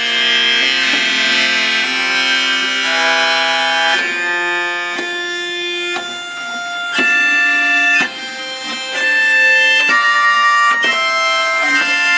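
Organistrum, a keyed string instrument with a cranked bowing wheel, playing a melody of held, bowed notes that change pitch about every second, each change starting with a sharp attack.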